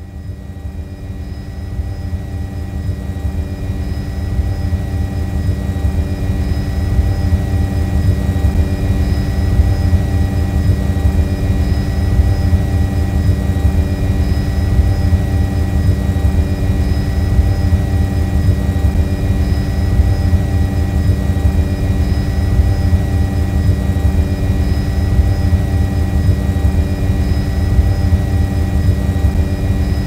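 Quadcopter drone's propellers running in a steady buzz, with several constant whining tones over a strong low rumble. It swells in loudness over the first few seconds, then holds steady.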